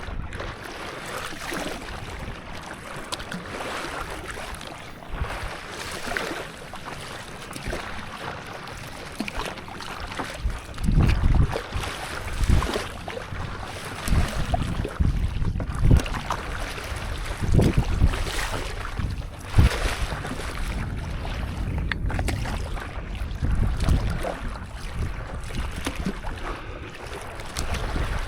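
Stand-up paddle strokes swishing and splashing in seawater, over a steady wash of the sea. Wind buffets the microphone in low gusts every second or two.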